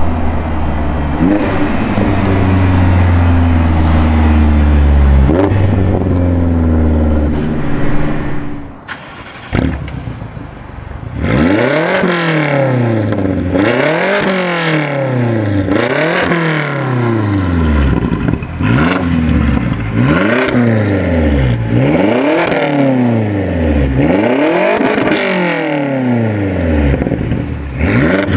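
A BMW X6M's twin-turbo V8, running through an Eisenmann exhaust with Dinan mufflers. It is loud under hard acceleration, with a gear change about five seconds in, as the car drives up. After a short lull it gives a string of about eight free revs at standstill, each rising and falling, roughly one every two seconds.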